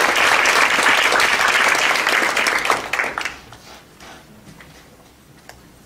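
Audience applauding, dying away about three seconds in, with a few scattered last claps after.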